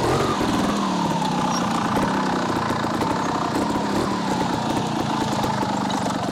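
Two-stroke engine of a 2022 TRS RR 300 sidecar trials outfit running at low revs under load as the outfit picks its way through a trials section. The pitch rises and falls a little.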